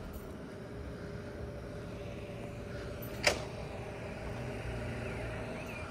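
Steady low hum of car engines and traffic, with one sharp click a little over three seconds in.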